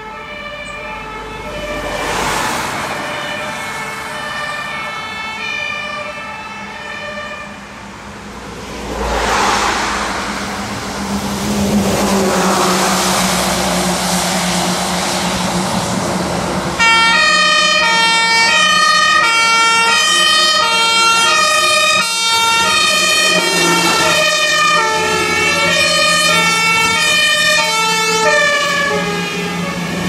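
German fire engine two-tone siren (Martinshorn) alternating steadily between two pitches, faint at first and much louder from about seventeen seconds in as the engine nears. Passing road traffic adds rushing swells and a low engine hum.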